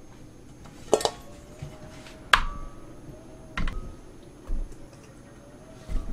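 Whole tomatoes tipped by the handful from a stainless steel bowl into a glass blender jar, making five knocks and clinks about a second apart. One of them is followed by a short ringing tone.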